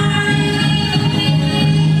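Music with sustained instrumental or vocal tones over a steady low note.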